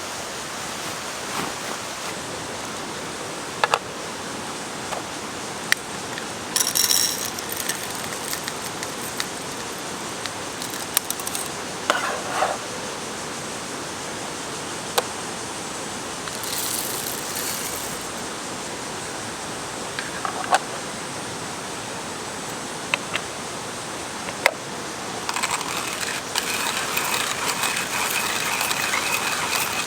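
Steady rush of a mountain stream, with scattered sharp clicks and knocks over it and a few brief louder rustling spells, the longest near the end.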